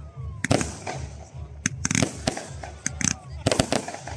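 Fireworks display going off: a quick series of sharp bangs and crackling bursts, several coming in tight clusters, over a low background rumble.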